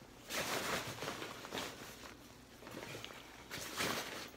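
Osprey Mira AG 34 hiking backpack's fabric rustling and swishing as it is handled and packed, in several bursts, the loudest near the start and near the end.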